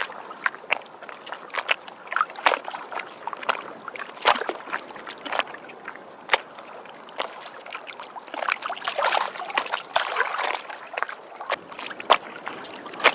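Water sloshing and splashing, a busy wash of small splashes and drips with a denser stretch about two-thirds of the way through, played as a library sound effect.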